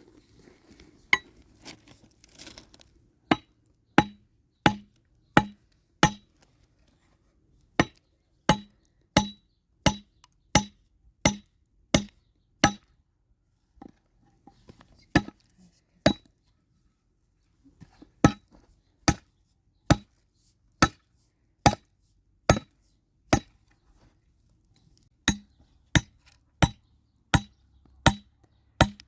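Hammer driving nails into wooden planks: steady blows, about one and a half a second, each with a ringing clink. The blows come in three runs with two short pauses between them.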